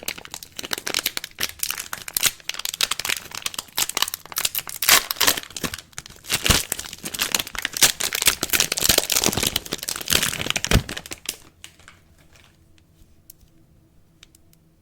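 Soap wrapping crinkling and tearing as it is unpacked: a dense run of crackles that stops about eleven seconds in, followed by a few faint clicks.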